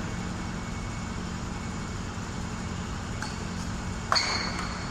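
A badminton racket striking a shuttlecock: one sharp crack with a short high ping about four seconds in, after a fainter tap a little earlier. A steady low hum runs underneath.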